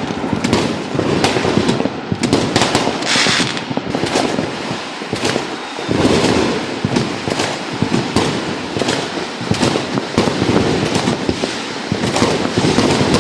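Fireworks going off in a rapid, irregular run of sharp bangs and crackles, many overlapping with no pause.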